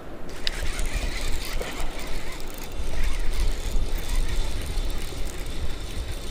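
Baitcasting reel being cranked, its gears whirring and clicking as line is reeled in, over a low rumble of wind on the microphone. A sharp click comes about half a second in.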